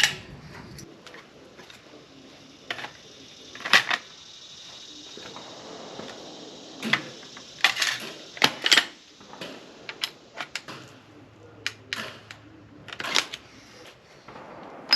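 Irregular sharp metallic clicks and clacks, a dozen or so spread unevenly, with no shot fired: hands handling metal gear.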